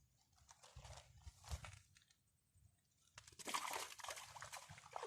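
Rustling and crunching close to the microphone, in two stretches, the louder one in the second half.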